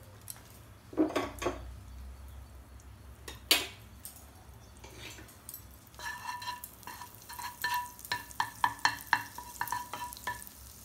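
Wooden spatula knocking and scraping in a non-stick kadhai as butter melts and begins to sizzle. A few separate knocks come first, then from about halfway through a quick run of clicks of the spatula against the pan, with a faint ringing tone.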